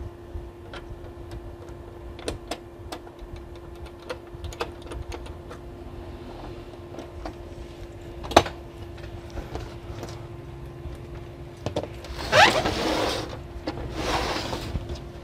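Small clicks and taps of a screwdriver and fingers on the plastic rear cover of a Canon G1020 inkjet printer as the cover is closed back up, with one sharper click about eight seconds in, over a steady hum. Near the end comes a louder scraping as the printer is slid and turned on the bench.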